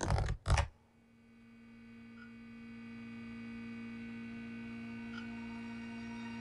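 A steady low drone of several held tones together, swelling in gradually over the first few seconds after two short bursts of noise at the very start.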